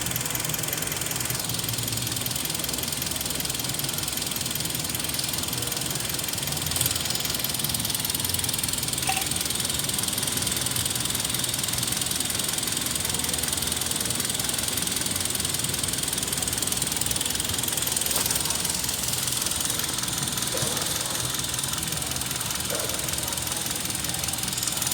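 Hyundai ix35's 2.4-litre four-cylinder petrol engine idling steadily.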